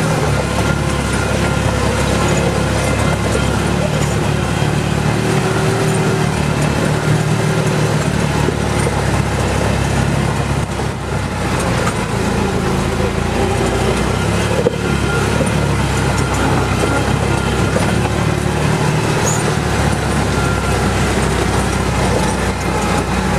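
ATV engine running steadily under load as the quad climbs a rocky trail, heard from on board, with one sharp knock about fifteen seconds in.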